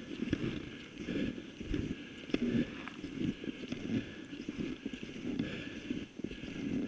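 Åsnes cross-country skis sliding and poles planting in cold, dry snow, a rhythmic scraping that repeats with each stride.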